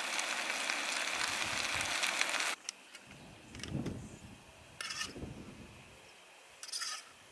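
Camping gas stove burner hissing steadily, cutting off suddenly about two and a half seconds in. After it, only faint low gusts and a few light clicks.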